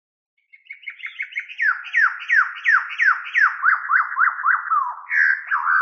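A run of quick whistle-like notes, each sliding steeply down in pitch, about three a second, turning into faster up-and-down warbles about three and a half seconds in, then fading out. Part of an intro sound effect over the title card.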